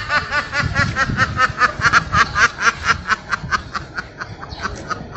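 A domestic duck quacking in a rapid run, about five quacks a second, that sounds like an evil laugh. The quacks fade off after about three seconds.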